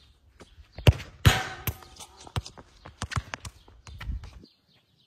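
A football kicked hard on a concrete court about a second in, then a loud impact with a brief metallic ringing as the ball strikes metal at the goal end. A run of sharp footsteps and smaller knocks on the concrete follows.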